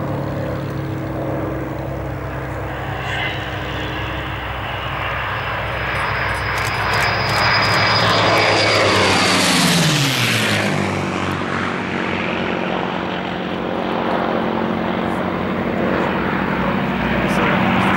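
Propeller fighters' piston engines running. A pair of P-51 Mustangs' Merlin V-12 engines swell as they pass low, and their note drops steeply as they go by, about ten seconds in.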